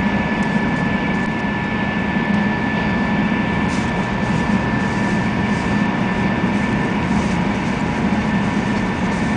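Shinkansen bullet train running at speed, heard inside the passenger car: a steady low rumble and rushing noise with a faint, steady high whine.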